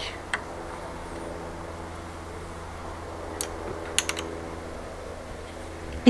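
A few light, sharp clicks of a small Allen key and brake-lever fittings being worked on an e-bike's handlebar: one just after the start and a couple more about three and a half to four seconds in, over a steady low hum.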